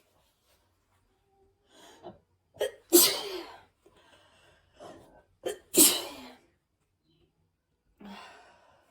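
A man with a cold sneezing twice, about three seconds apart, each sneeze led by quick gasping in-breaths. A softer breathy sound follows near the end.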